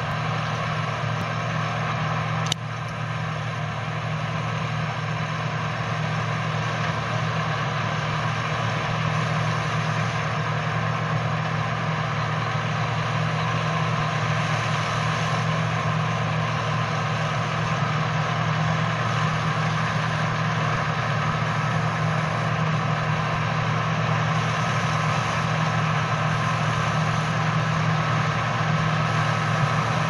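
John Deere combine harvester working a barley field: a steady machine drone from its engine and threshing gear, growing slowly louder as it comes closer. A single brief click sounds about two and a half seconds in.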